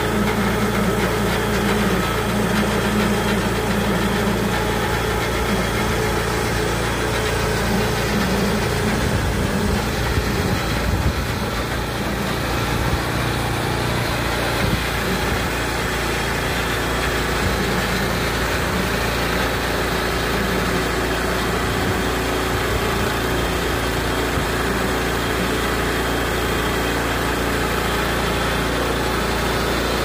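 Gasoline engine of a portable bandsaw sawmill, a modified Harbor Freight mill, running steadily under load while its band blade cuts through a large elm log.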